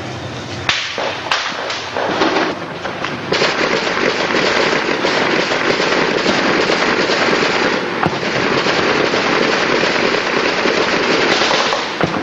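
Gunfire: a quick run of sharp cracks about a second in, then a dense, continuous crackle of shooting that lasts until near the end.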